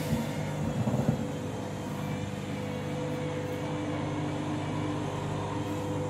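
Front-loading washing machine in a short spin on a synthetics cycle, the drum turning with a steady motor hum and whine. A few knocks come in the first second or so.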